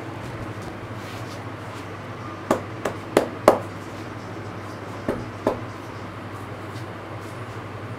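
Sharp hand slaps of a head massage: four quick strikes within about a second, then two more a couple of seconds later, over a steady background hum.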